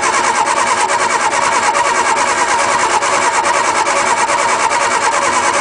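Starter motor cranking a 1961 Ford Anglia's four-cylinder engine over steadily, with a fast, even pulse of compression strokes, without it firing. The engine is getting no spark, so it cranks with no ignition.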